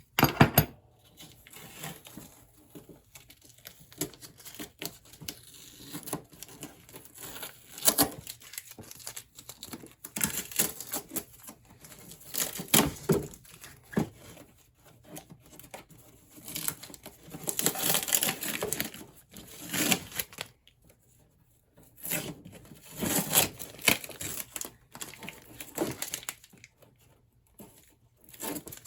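Wrapping being torn and peeled off a freshly cured hull repair, in irregular bursts of crinkling and tearing with short pauses.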